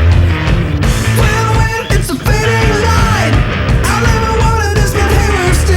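Loud punk-rock music with a steady beat, distorted guitar and a shouted vocal line coming in about a second in.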